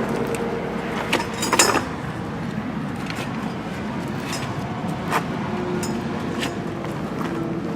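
Scattered sharp clinks and knocks of metal being handled during a roadside tire change, over a steady background rumble.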